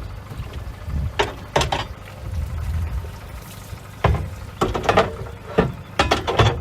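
Water splashing in short, irregular bursts over a low, steady rumble.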